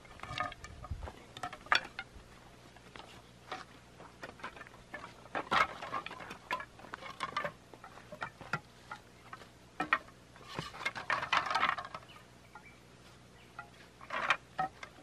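Irregular knocks and clatters of cut bamboo poles being handled and laid across a wooden frame, with bursts of quick clacking a few times.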